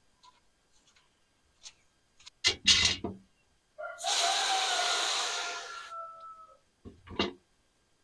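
Garden hose spray nozzle rinsing freshly picked squash and zucchini: a steady hiss of spraying water with a faint whistling tone, lasting about three seconds from about four seconds in. A couple of loud knocks come before it, and a short one near the end.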